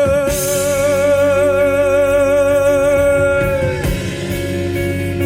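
Live band music: a singer holds a long note with vibrato over guitar, bass and drums, with a cymbal crash just after the start. The note slides down a little under four seconds in, and a new held note starts near the end.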